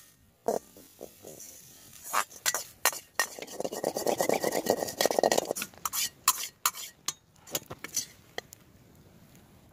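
Metal ladle scraping and clinking against a wok as fried rice is stir-fried, a string of sharp knocks with a denser run of scraping in the middle. It dies down near the end.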